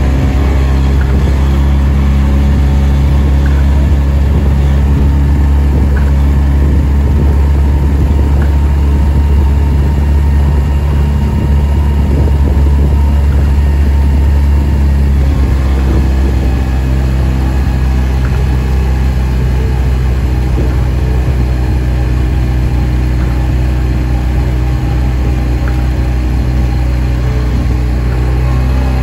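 Outboard motor of a coaching launch running steadily at an even speed, close to the microphone.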